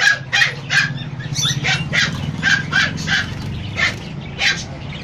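Small dog or puppy barking: about a dozen short, high yaps in quick succession, thinning out toward the end. A steady low hum runs underneath.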